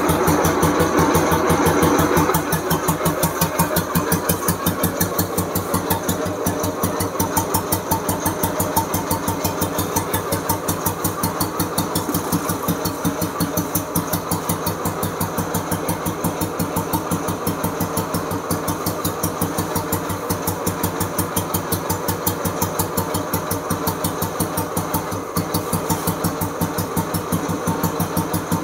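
The restored 1988 Royal Enfield Bullet's single-cylinder four-stroke engine runs a little harder for the first two seconds, then settles to a steady, even idle thump. It is freshly rebuilt and running well.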